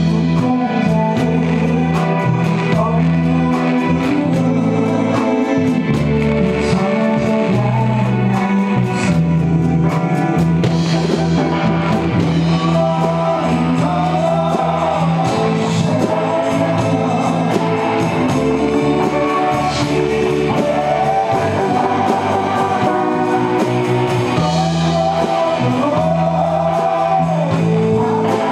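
Live band playing through a PA system: a male singer on a handheld microphone over electric guitar, bass and a steady drum beat. The vocal line comes through more strongly in the second half.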